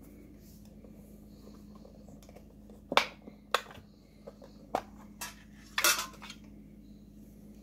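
Small hinged metal tin being handled and pried open: a handful of sharp metallic clicks and clinks, the loudest about three seconds in and a quick cluster a little past the middle as the lid comes open.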